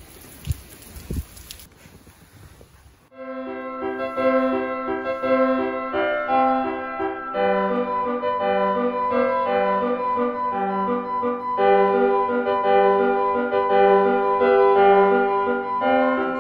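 Wind and rain noise for about three seconds, with a couple of knocks, then a sudden switch to background piano music with a repeating low accompaniment.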